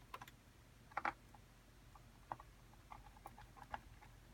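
Faint, scattered clicks and taps of hands working on the plastic housing of an S99A desoldering pump while it is being opened, the loudest a quick double click about a second in.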